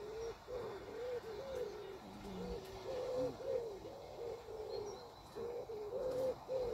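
A pigeon cooing: a steady run of low coos, about two a second.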